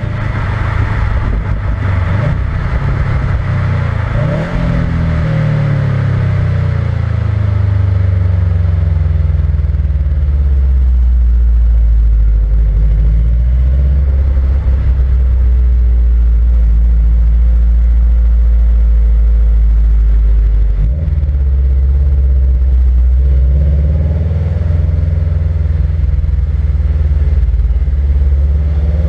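Subaru WRX STI's turbocharged boxer four through its stock exhaust, heard from under the car while driving, with road noise. The engine note rises and falls in the first few seconds, then holds a steady low drone at cruise, dipping briefly about 21 seconds in before changing pitch again.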